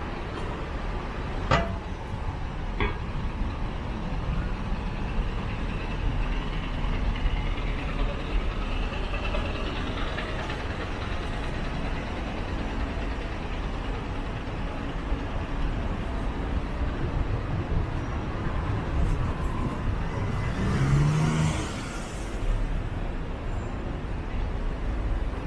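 Road traffic on a city street: a steady rumble of passing cars and larger vehicles. About twenty seconds in there is a louder burst of hissing over a low hum.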